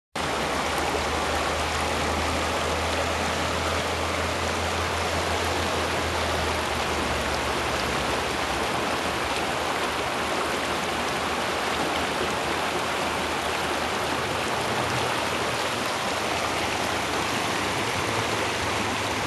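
Shallow brook babbling over rocks and riffles: a steady, even rush of running water.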